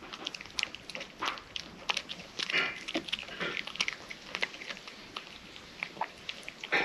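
A cat eating close to the microphone: irregular crunching and chewing of dry kibble mixed into wet canned food, with soft clicks and smacks several times a second.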